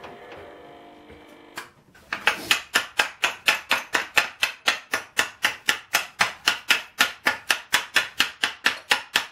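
Chipping hammer knocking slag off a fresh weld bead on a flat steel bracket clamped in a vise: quick, even, sharp metal taps about four a second, starting about two seconds in. Before the tapping, only a steady low hum.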